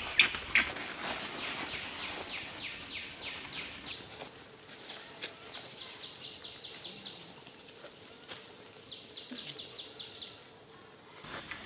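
Forest background in which rapid series of high-pitched chirps, about five a second, come in several bouts. A brief loud high squeal sounds right at the start.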